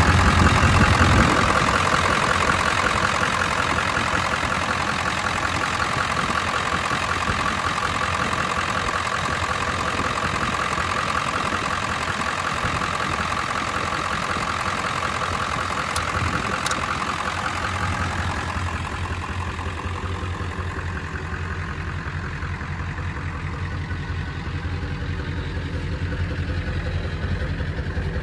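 Ford 7.3 Power Stroke V8 turbodiesel in a 1999 F-250 Super Duty running, loudest in the first second or two, then idling steadily.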